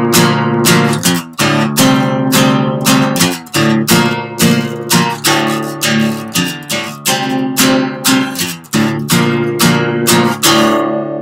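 Acoustic guitar strummed in a steady rhythm of chords, about two strokes a second; near the end a chord is left ringing and fading.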